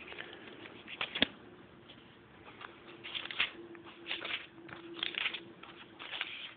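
Thin Bible pages being turned and smoothed flat by hand: a series of short, soft paper rustles, with one sharp tick about a second in.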